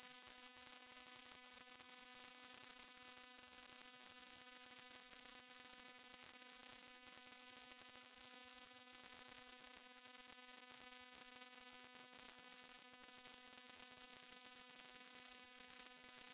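Near silence: a faint, steady electrical buzzing hum with hiss, unchanging throughout.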